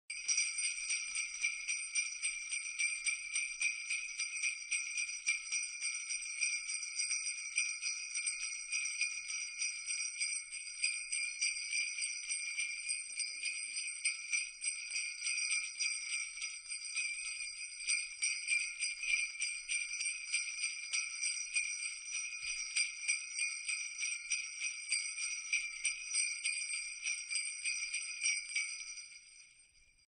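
Jingle bells shaken continuously in a rapid, even jingle, the same few ringing pitches throughout, fading out over the last couple of seconds.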